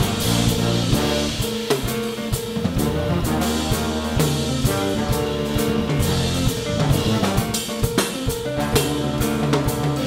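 A jazz big band playing live: a drum kit keeps a steady beat under an electric bass line and electric guitar.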